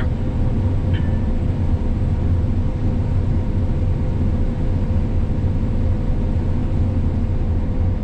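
John Deere S680 combine's diesel engine and machinery running steadily, heard from inside the cab: a constant low rumble with a steady high whine over it.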